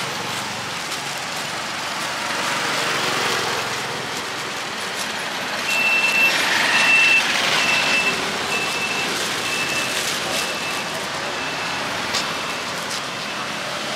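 Street traffic noise with a vehicle's reversing alarm: a single high beep repeating at an even pace, about three every two seconds, from about six seconds in until shortly before the end.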